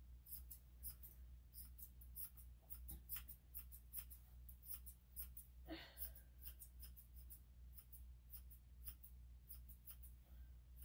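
Grooming shears snipping a long-haired Chihuahua's fur around the face: quick, light snips, many in a row with short pauses, over a steady low hum.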